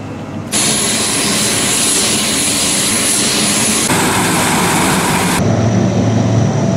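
Lockheed C-130 Hercules's four turboprop engines running at high power, a loud rush of propeller and engine noise with a steady high whine, as the aircraft rolls for takeoff. About five and a half seconds in it changes to a lower, steadier hum.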